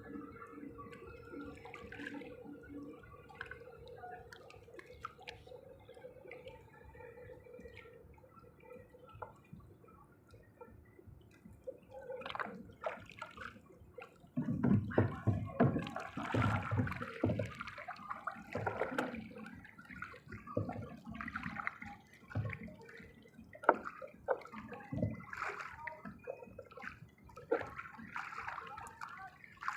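Water splashing and dripping in irregular bursts, much louder from about halfway in, with a faint steady hum in the first half.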